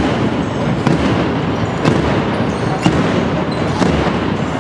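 A basketball being dribbled on a sports-hall floor, with sharp bounces about once a second over the murmur of the crowd.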